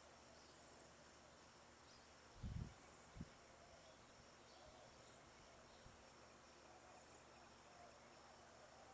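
Faint insects chirping, high and thin, repeating about once a second. Two low thumps come about two and a half and three seconds in.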